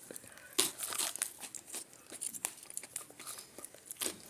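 Plastic wrapper crinkling and tearing in quick, irregular crackles.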